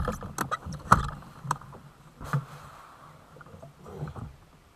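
A run of sharp knocks and clunks on a bass boat's bow deck and trolling-motor mount as a man handles the motor and nearly loses his footing. The loudest knocks come at the start and about a second in, followed by lighter scattered ones.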